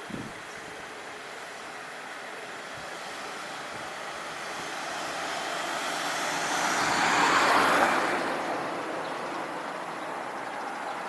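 A vehicle passing by: a broad rushing noise swells over a few seconds, peaks about seven to eight seconds in, then fades. A short knock sounds right at the start.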